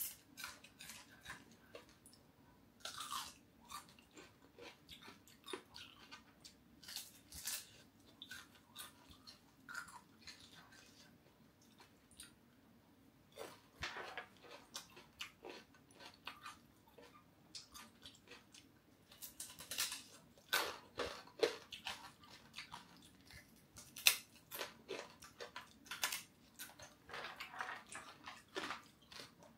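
Close-up chewing and biting of crispy deep-fried catfish belly, with irregular crunches that come thicker in the second half.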